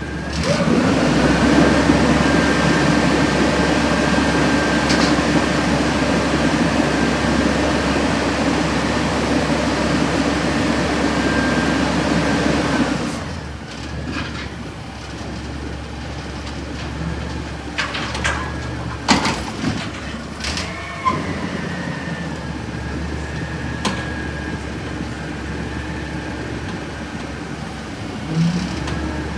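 Peterbilt 320 front-loader garbage truck with an Amrep body running at raised revs, with a high hydraulic whine, as its forks hold and tip a dumpster overhead. About 13 seconds in the engine drops back to idle, and a few sharp metal clanks follow a few seconds later as the dumpster is shaken out over the hopper.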